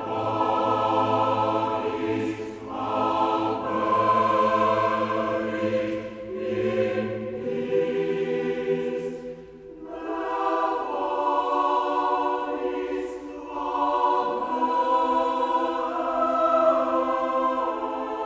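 Choral music: a choir singing long held notes in phrases, with a short break about ten seconds in.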